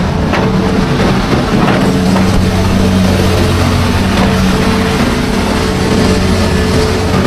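Hitachi amphibious excavator's diesel engine running steadily, with a few light knocks from the machine as it works in mud.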